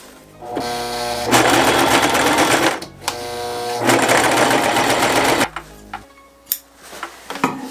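Electric household sewing machine stitching through webbing and sailcloth in two runs of about two seconds each, each starting with a rising motor whine, with a short pause between. It stops about five and a half seconds in, and only a few faint clicks of thread and fabric being handled follow.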